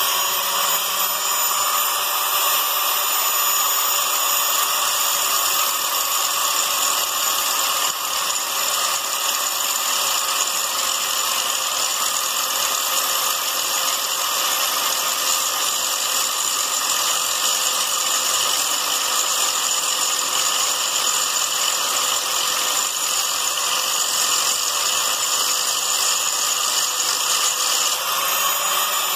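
Angle grinder running at full speed with a steady high whine, its disc grinding partway through a wheel bearing's inner race that is stuck on the hub shaft. Near the end it comes off the work and its pitch rises a little.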